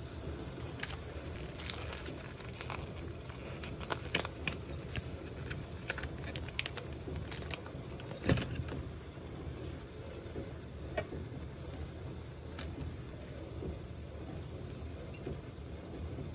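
Light clicks, taps and crinkles as hands handle a plastic cooked-rice tray and break up the rice in a glass container, with one sharper knock about eight seconds in. A steady low hum runs underneath.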